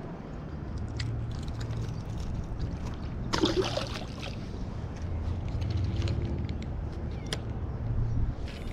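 A released bream splashing into the water beside the rocks, one short splash about three and a half seconds in, over a steady low rumble. A sharp click follows about seven seconds in.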